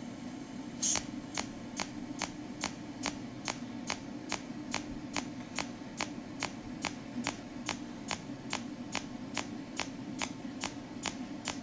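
Cold welding machine (pulse arc welder) firing its discharge pulses: a sharp snap repeating evenly about two to three times a second, the first one loudest, over a steady low hum.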